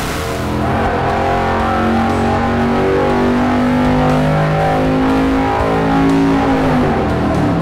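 Dart 400ci small-block Chevy V8 running hard on an engine dyno during a pull on a 150-horsepower shot of nitrous, mixed with rock guitar music.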